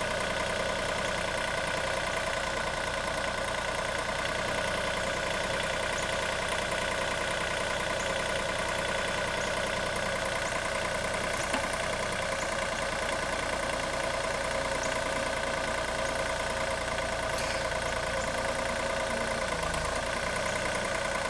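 Mini-excavator's diesel engine running steadily as the machine works its boom and bucket in loose soil.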